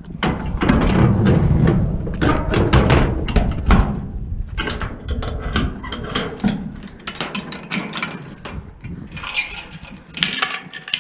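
Scrap metal clanking and rattling as it is handled, a dense run of sharp metallic knocks and clicks. Heavy low rumbling handling noise fills the first few seconds.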